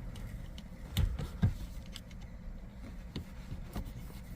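Small plastic clicks and knocks as a metal pick pries at the plastic locking piece on a shift lever knob. There is a cluster of taps about a second in, a louder knock soon after, and a few faint ticks later, over a low steady hum.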